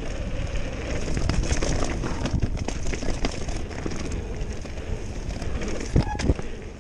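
Mountain bike riding fast down a dirt singletrack: tyres rumbling over the loose dirt and wind rushing over the microphone, with frequent rattles from the bike and two harder knocks about six seconds in.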